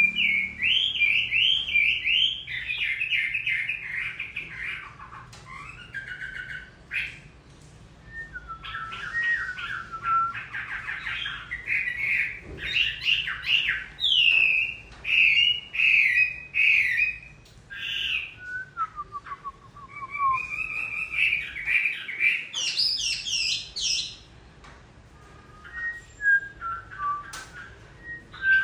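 Chinese hwamei singing a long, varied song of rapid repeated notes, trills and slurred whistles, with a couple of short pauses.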